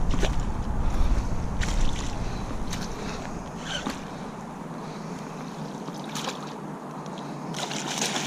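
Wind rumbling on the microphone at first, then a hooked pike thrashing and splashing at the surface near the end, with a few light clicks in between.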